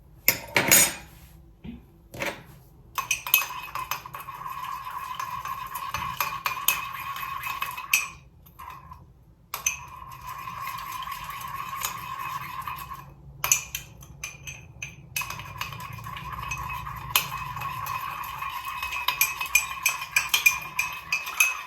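A metal spoon stirring fast in a cup or glass, clinking against the sides with a steady ringing, to dissolve a lump of hard sugar in a little hot water. There are a few separate knocks at the start and two short pauses in the stirring.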